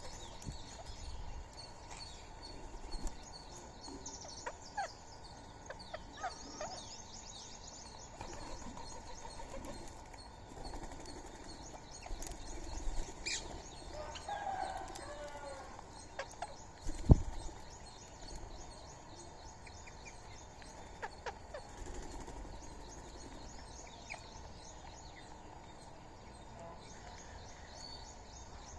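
Birds calling at a feeding spot: a steady mix of fast, high chirping trills and scattered clicks, with a short, wavering lower call about halfway through. A single sharp thump a little after that is the loudest sound.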